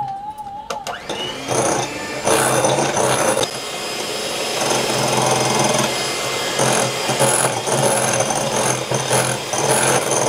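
Jaipan electric hand mixer switched on about a second in, its motor spinning up and then running steadily. Its beaters whip egg whites and powdered sugar in a glass bowl for sponge-cake batter.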